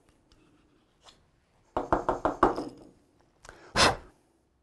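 Wooden blackwood bagpipe blowpipe being knocked to shake the reamed wood dust out of its bore: a quick run of about five sharp knocks, then two more a second later, the last the loudest.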